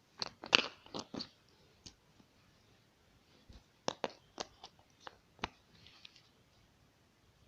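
Short, sharp clicks and taps of a smartphone being handled, in two clusters: several in the first second or so, then five or six more a few seconds later.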